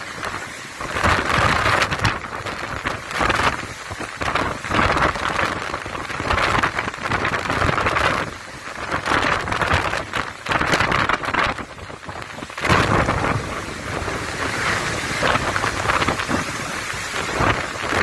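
Cyclone-force wind and heavy rain, the noise surging and easing in gusts every second or two, with the gusts buffeting the microphone.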